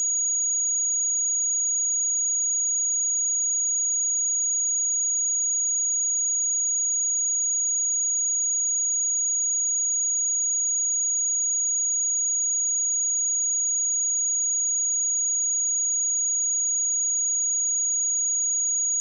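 Steady 6736 Hz sine-wave test tone: a single pure high-pitched note held at constant level.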